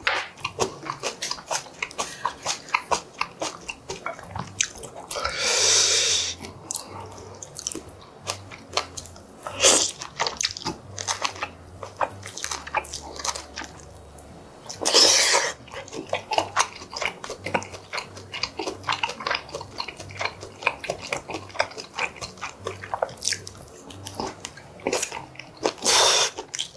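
A person chewing and biting braised pork and kimchi close to the microphone, with many wet smacks and clicks. Two longer slurps stand out, one about five seconds in and one about fifteen seconds in.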